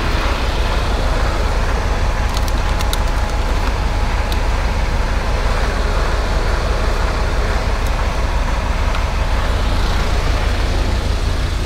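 Semi truck's diesel engine idling, a steady low rumble heard from beside the cab, with a few light clicks a couple of seconds in.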